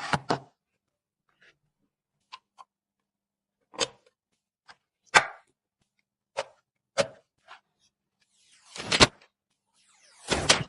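Scattered sharp clicks, taps and knocks of PC parts being handled and fitted, about ten in all with silence between them; the loudest come about five seconds in and near the end, the last few slightly drawn out.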